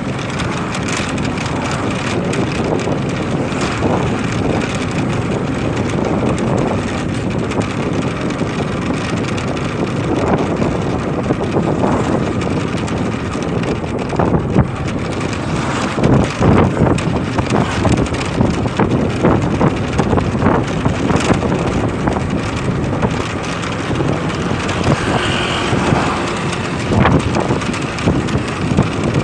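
Riding a motorcycle: wind rushes over the microphone and the tyres and engine make a steady noise underneath. A brief higher-pitched tone comes in near the end.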